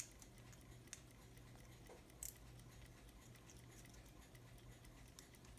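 Near silence over a low steady hum, with a few faint, irregular clicks of work on the pocket watch's movement as the mainspring is freed from its inner hook.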